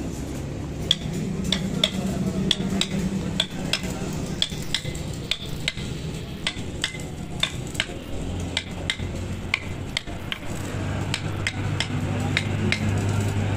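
Hand hammer tapping on the top ring of a steel truck rear wheel hub: light, sharp metallic taps, about two a second, starting about a second in, over a steady low hum.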